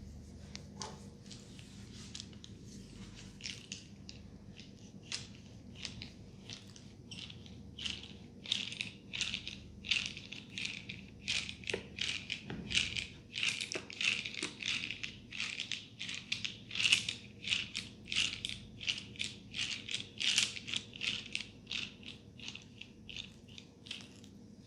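Hair and scalp rubbed during a head massage: a quick run of crisp, scratchy strokes, about four a second, faint at first and louder from about eight seconds in.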